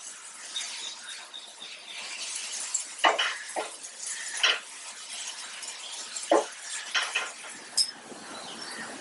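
Wooden spatula stirring a tomato-onion masala in a non-stick frying pan: a steady sizzle with several separate scrapes of the spatula against the pan, most of them in the second half.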